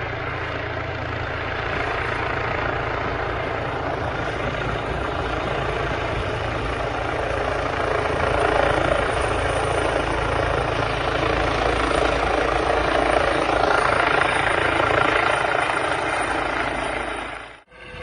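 Rescue helicopter's rotor beating and turbine running steadily, growing louder from about halfway through; the sound cuts off abruptly just before the end.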